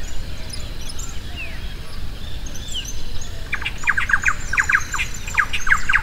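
Birds calling over a low steady rumble: a few single falling whistled notes, then from about three and a half seconds a rapid chattering run of short, high notes.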